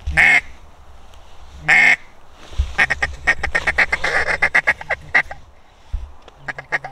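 A hunter's duck call blown close by: two loud drawn-out quacks, then a fast run of short clucking notes, several a second, like a feeding chuckle, and a few more short notes near the end, calling to incoming ducks.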